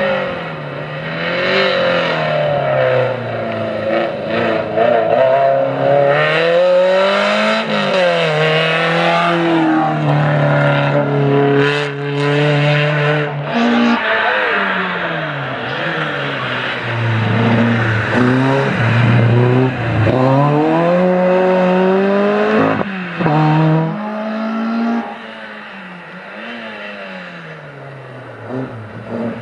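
Slalom race cars' engines revving hard and dropping again and again as they brake and accelerate through cone chicanes, the pitch climbing and falling every second or two. A Peugeot 205 is heard first, then a Volkswagen Golf, which grows quieter near the end.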